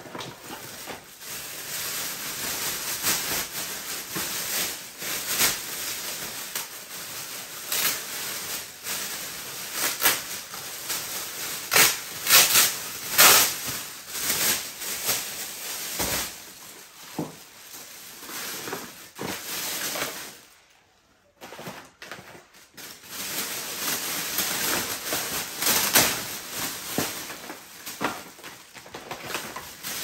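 A clear plastic bag crinkling and rustling as crushed cardboard boxes and packaging are picked up and stuffed into it, with irregular crackles and a short lull about two-thirds of the way through.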